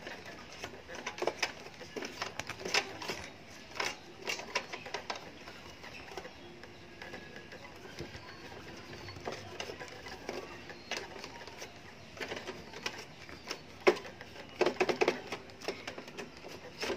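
A hand and cloth rubbing and knocking against the plastic underside of an Epson L120 inkjet printer as it is wiped down with alcohol, giving irregular clicks and light knocks, busiest in the first few seconds and again near the end.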